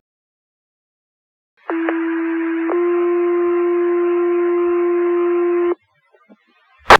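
Fire department radio paging tones: a two-tone sequential alert, a first tone about a second long stepping straight into a slightly louder second tone held about three seconds, then cut off. A sharp radio click comes near the end.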